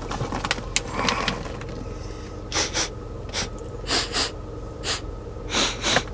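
A person sniffing at an open bag of cheese and caramel popcorn: short sharp sniffs, several in quick pairs, over a low steady hum.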